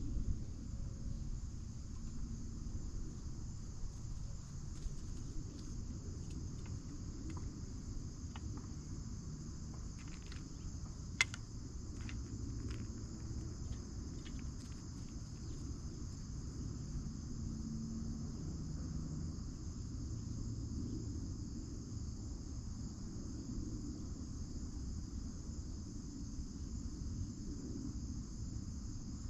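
Steady, high insect chorus of crickets, with a low rumble underneath. A few faint clicks come in the middle stretch, with one sharp click about 11 seconds in.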